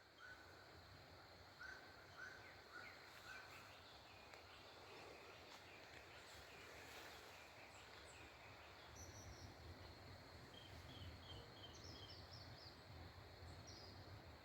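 Faint birdsong: a green-winged saltator (picharro) gives a run of short, evenly spaced notes about twice a second in the first few seconds, and higher, quicker chirps from other birds follow later. A faint low rumble comes in from about halfway through.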